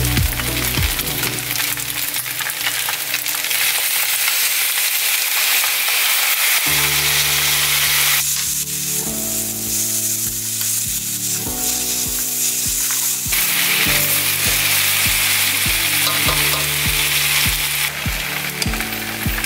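Flat rice noodles stir-fried in a hot pan: steady sizzling of oil and the just-added soy-based stir-fry sauce, with a spatula stirring and tossing the noodles.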